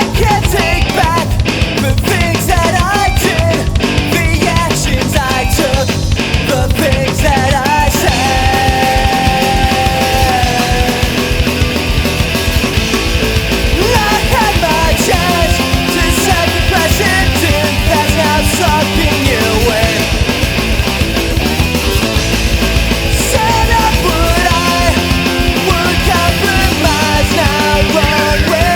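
Loud rock music with distorted guitars and a driving beat.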